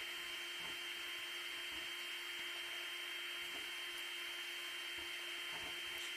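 Faint steady hum with an even hiss over it, and a few soft clicks.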